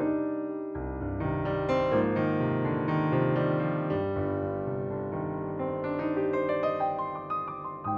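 Background music: a calm instrumental track led by a piano, playing chords and runs of notes.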